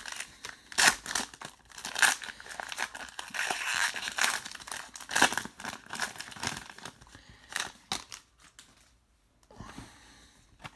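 Foil trading-card pack wrapper crinkling and tearing as it is ripped open by hand, busy and crackly for about seven seconds, then dropping to faint handling noise.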